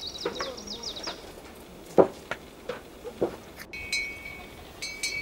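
Songbirds singing outdoors: a fast high trill in the first second, and clear high repeated notes from past the middle. A few sharp knocks in between, the loudest about two seconds in.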